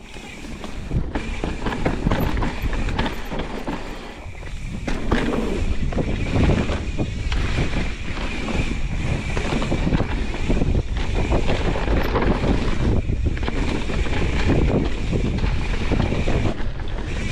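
Mountain bike ridden down a dirt trail: wind rushing over the camera microphone, with the bike rattling and knocking over rough ground. It gets louder from about five seconds in as the pace picks up.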